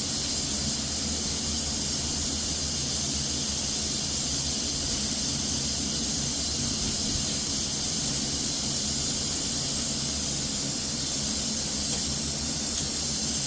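Steady, even hiss of rushing air with a low hum underneath, as from spray-coating air equipment.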